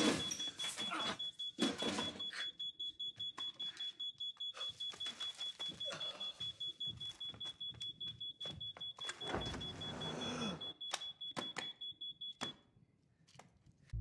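Household detector alarm beeping rapidly in one high pitch, about four to five beeps a second, stopping suddenly near the end, with scattered knocks and clicks alongside.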